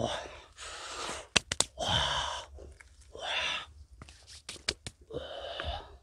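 A man's breathy exhalations, four short puffs spaced about a second apart, as he strains reaching up to pull a fruit off a tree branch. A few sharp snaps from the branch and leaves come between them.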